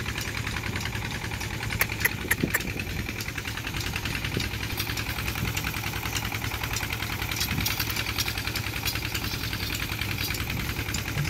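An engine running steadily: a low rumble with a fast, even pulse, and a few sharp clicks about two seconds in.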